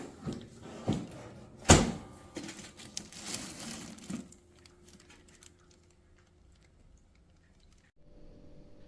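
Handling noises: a few knocks and one sharp clack about two seconds in, then a couple of seconds of scraping and rustling. After that it goes quiet, and a faint steady hum comes in near the end.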